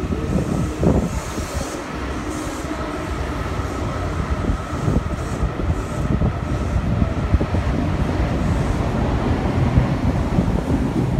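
Yokohama Municipal Subway Green Line linear-motor train pulling out of the station and running past, a continuous rumble of wheels on rail with a faint steady whine above it.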